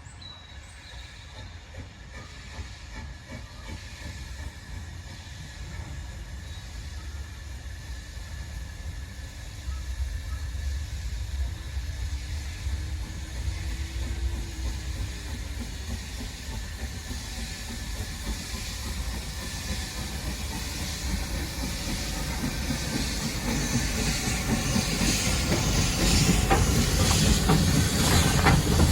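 S&DJR 7F 2-8-0 steam locomotive running light engine, getting steadily louder as it draws closer, with rumbling and hissing steam.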